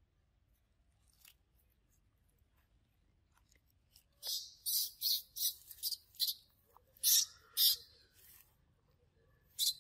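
A bird chirping in a quick series of short, high-pitched chirps, about two a second, starting about four seconds in after a nearly quiet stretch.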